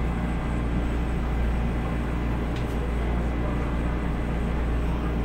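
Steady running noise inside a moving MTR East Rail Line Metro-Cammell (MLR) electric train: a low, even rumble of the train on the track, with a faint click about two and a half seconds in.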